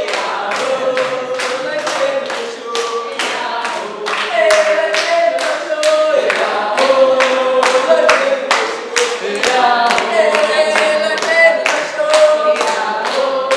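A group singing together without instruments, clapping hands in a steady beat of about two claps a second.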